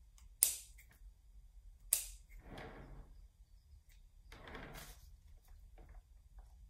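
Two sharp snips of scissors cutting through plaster bandage on a sculpture, about a second and a half apart, followed by softer handling noise.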